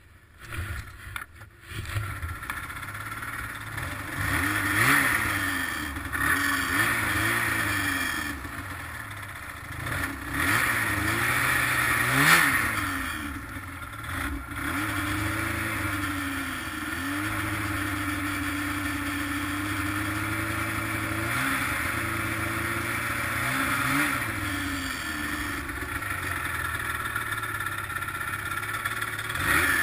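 Arctic Cat ZR800 snowmobile's two-stroke twin engine coming up about a second in, then riding and revving up and easing off several times, with a steady cruise in between. The sled is still running badly, which the owner suspects may be bad fuel injectors.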